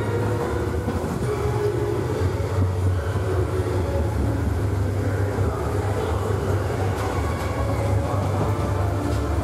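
Space Mountain roller coaster train rumbling steadily along its track at speed: a constant low rumble with rattling noise over it.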